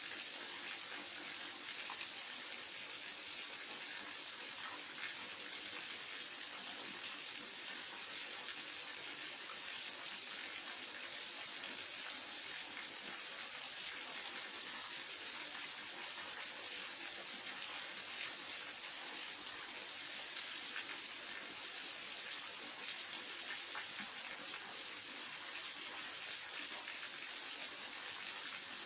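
Waterfall: a steady rush of falling water, an even hiss that sits mostly in the upper range with little low rumble.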